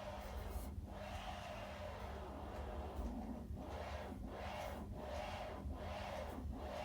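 Vinyl single playing with steady surface noise, hiss and crackle over a low rumble and a faint hum, from dirt in the record's grooves.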